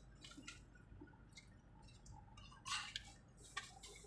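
Quiet car cabin: a faint steady low rumble with scattered small clicks and ticks. There is a short sharp sound a little under three seconds in, and another just before the end.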